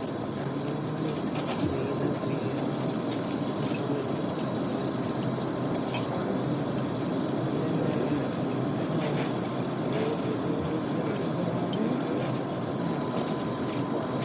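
Hospital ambience: a steady background hum with indistinct murmuring voices and occasional faint clicks and knocks.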